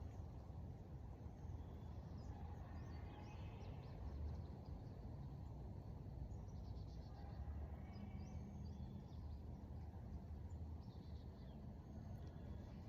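Faint outdoor ambience: a steady low rumble with scattered bird calls and chirps every few seconds.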